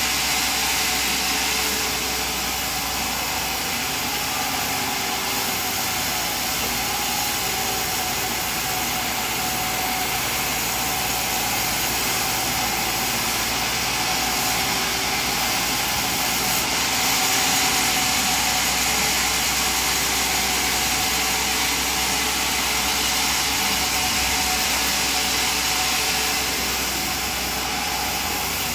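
Sawmill machinery running steadily: a continuous mechanical drone and hiss with a steady whine, no separate cuts or knocks standing out.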